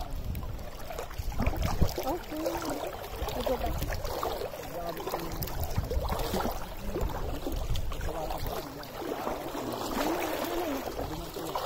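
Shallow seawater lapping and sloshing, over a steady low rumble, with faint voices in the background.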